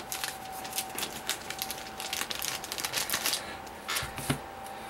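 Quick small clicks and crackles of plastic packaging as game cards and hexagonal cores are worked loose from a Bakugan pack, with a soft knock about four seconds in as they are set down on the play mat.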